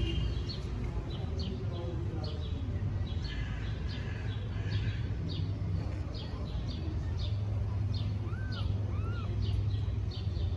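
Small birds chirping repeatedly, many short high chirps a few a second, over a steady low rumble, with two brief rising-and-falling squeaks near the end.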